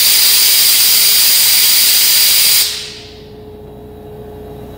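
Compressed-air venturi coolant vacuum tester hissing loudly as it pulls vacuum on the engine's cooling system. It is shut off about two and a half seconds in, the hiss dying away quickly, so the sealed system can be checked for holding vacuum.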